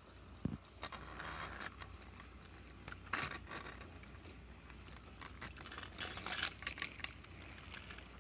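Handling noise: fabric scraping and rustling against the camera, with scattered light clicks. The loudest scrape comes about three seconds in.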